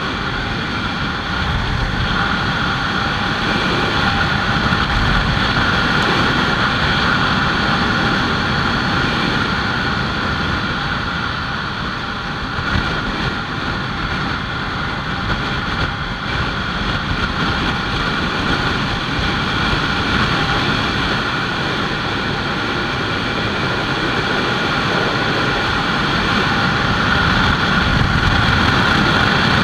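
Kawasaki Ninja 300 parallel-twin engine running at a steady cruising speed, mixed with wind rushing over the microphone.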